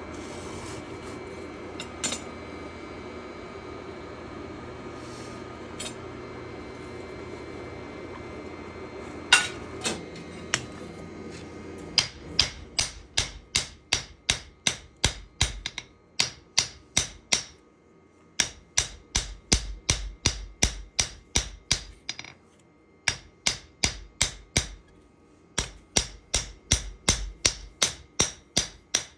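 A steady hum with a few scattered metal clinks. About twelve seconds in, rhythmic hammer blows on steel begin, about two and a half a second, in runs broken by short pauses: a knife blade being forged.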